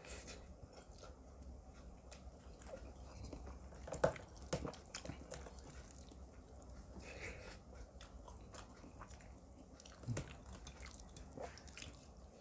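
A person chewing and eating chicken korma with rice, with wet mouth sounds and a few sharp clicks, the loudest about four seconds in and again near ten seconds.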